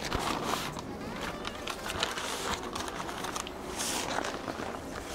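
Butcher paper crinkling and rustling in a run of short, irregular crackles as a wrapped brisket is opened up.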